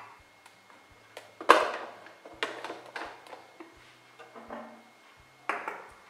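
Clicks and knocks of a drip coffee maker being handled as its plastic filter basket is swung open: a sharp knock about a second and a half in, then several lighter clacks.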